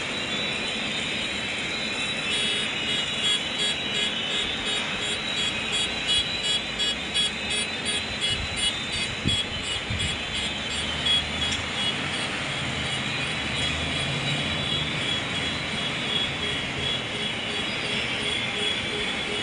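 JCB 3DX backhoe loader's diesel engine running steadily, with a high steady whine over it and a rhythmic pulsing for several seconds in the middle.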